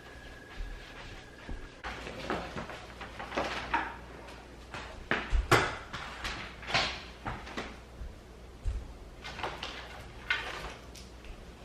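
Household handling noises: a run of knocks, bumps and short rustles, the sharpest knock about five and a half seconds in. A faint steady high tone stops about two seconds in.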